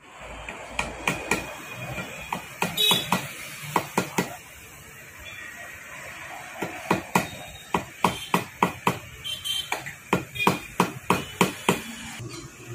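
Sharp metal knocks and taps from motorcycle front-fork parts being worked by hand, a damper tube and its fittings struck together. There is an uneven cluster in the first few seconds, then a faster run of about three knocks a second through the second half.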